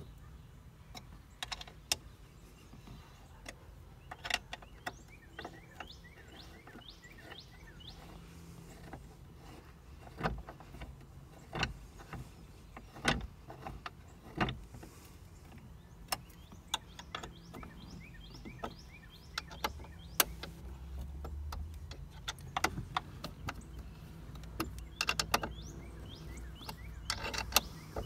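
Allen wrench turning long, tight bolts by hand into a front grab handle mount, giving irregular sharp metal clicks and ticks as the key shifts and catches in the bolt heads.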